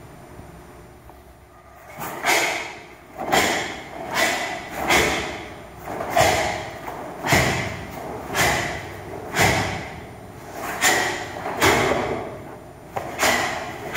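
Karate kata techniques: from about two seconds in, a series of about a dozen sharp snaps and thuds, roughly one a second, as the gi cracks with each strike and block and bare feet stamp on the foam mats. Each hit echoes in the hard-walled hall.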